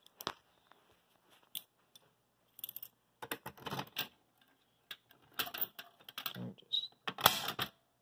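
A bunch of keys jangling and clicking in hand, in several short rattling bursts with single clicks between them.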